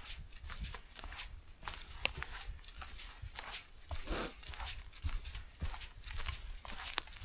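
Footsteps of a hiker on a forest trail: irregular scuffs and crackles underfoot, with a longer rustle about four seconds in.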